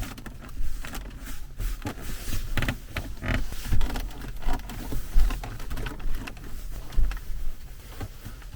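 Range Rover Evoque cabin trim creaking and squeaking in short, irregular chirps and clicks over a low rumble: interior panel rattles that spray grease has not cured.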